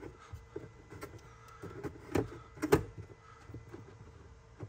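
Scattered plastic knocks, clicks and scrapes from a HEPA cabin air filter being forced by hand into its housing, which it slightly overfills. Two sharper knocks come a little past the middle.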